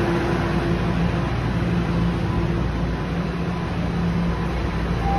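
Steady hum and hiss inside a Toronto Rocket subway car, with a low, even drone from the car's equipment.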